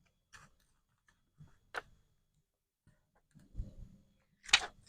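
Faint, scattered crackles and ticks of the backing sheet being peeled off a DTF sticker's plastic transfer film, the sharpest crackles coming near the end.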